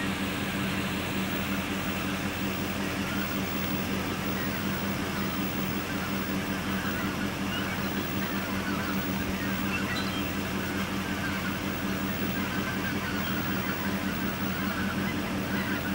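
Geese in flight overhead, their calls faint and scattered, over a steady low hum like an idling engine.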